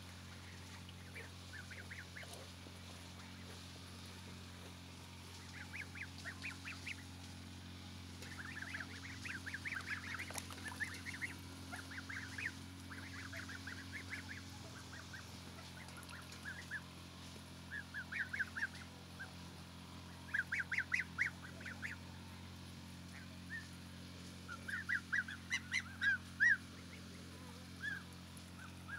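Domestic geese honking in runs of short, quick calls, several times over.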